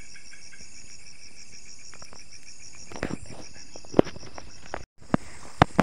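Night insects, crickets among them, chirring in steady rapid pulses. A few sharp knocks cut through, the loudest about four seconds in and a cluster near the end, and the sound drops out for a split second just before the end.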